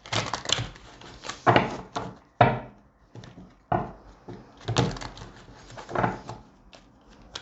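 Tarot cards being shuffled and handled on a table: about six irregular soft knocks and swishes.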